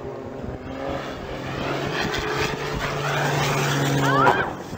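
Piston engine of a small propeller biplane droning steadily in a dive, growing louder over the last couple of seconds. Near the end a brief rising high-pitched sound comes at the loudest moment, then the level drops sharply.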